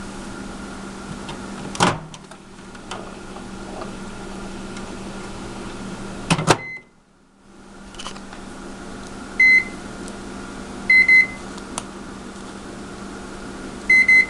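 A faulty microwave oven running with a steady hum, the kind that runs when its door is opened. Sharp clicks come about two seconds in and again near six and a half seconds, the hum stops for about a second and starts again with a click, then its control panel beeps once and then twice, twice.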